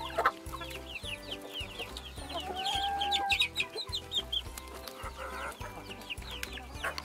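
A flock of chicks peeping in a dense stream of short, falling chirps, with hens clucking among them.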